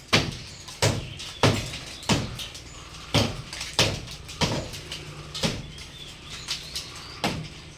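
A regular series of sharp thuds or knocks, about three every two seconds, around a dozen in all.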